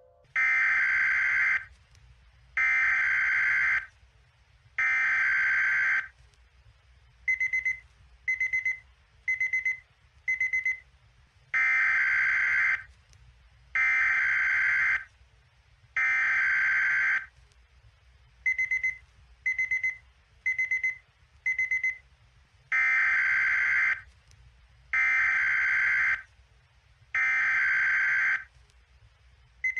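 Electronic emergency alert alarm tone beeping in a repeating cadence of three long beeps followed by four short, quicker beeps. The cycle runs about two and a half times.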